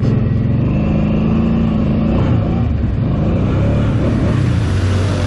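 ATV engine running hard under throttle, its pitch rising and falling as the revs change; it comes in suddenly loud at the start.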